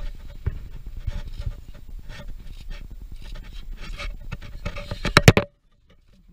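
Polar bear's paw and claws scraping and knocking on steel diamond-plate stair treads, with a run of loud knocks about five seconds in, after which the sound cuts off suddenly.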